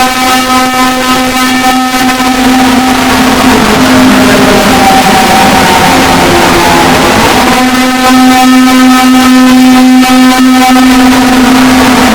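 Loud, harsh emergency-alert alarm tone: a steady buzzing drone with many overtones. In the middle it thins out while shorter tones at changing pitches come and go, and about eight seconds in it comes back at full strength and gets louder.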